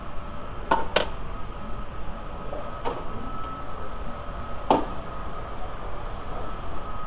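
A few sharp clicks and clacks of tools and parts being picked up and set down on a metal workbench, four in all, with a steady faint high tone underneath.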